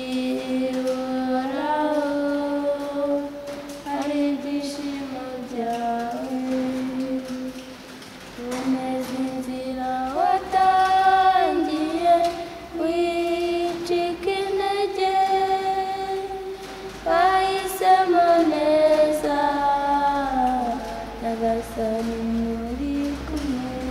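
A small group of youths singing unaccompanied, two voices holding long notes in harmony, with a brief break between phrases about eight seconds in.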